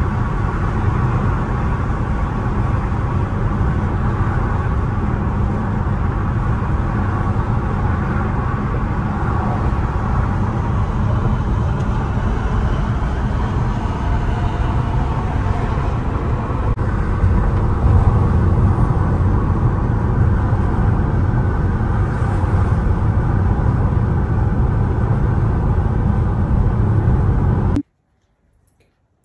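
Steady low rumble of road and wind noise inside a car's cabin while driving at highway speed. It cuts off abruptly near the end, leaving near silence.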